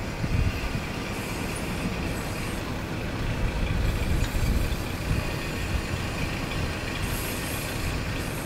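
KiHa 58-series diesel railcar train rolling slowly into a station and coming to a stop, its diesel engines running with a steady rumble. A faint high squeal rises around the moment it stops.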